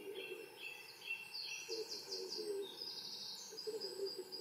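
Wild birds singing outdoors: runs of short repeated high notes, then quick high trills about halfway in, over a fainter, lower call.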